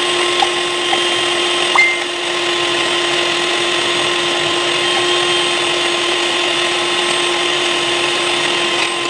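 Electric hand mixer running at a steady speed, its beaters whipping coffee, sugar and hot water in a plastic cup into thick dalgona foam. The motor's pitch holds level throughout.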